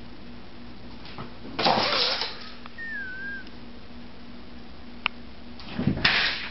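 A quiet room with a low steady hum, where a domestic cat cautiously approaches a sock. There is a short sound about two seconds in and a thin squeak a second later. Near the end comes a noisy scuffle as the startled cat leaps away against a door.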